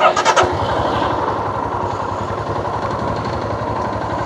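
A few sharp knocks at the start, then a motorcycle engine running steadily with an even low beat.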